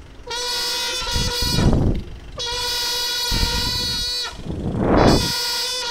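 School marching band's brass horns sounding long held notes together on one pitch, three in a row, each about two seconds. Low drum beats sound under the notes.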